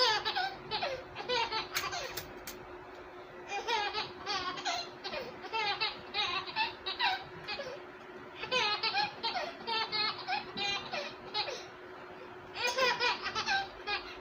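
A baby laughing hard in repeated bouts of short, high-pitched ha-ha pulses, with brief pauses between the bouts.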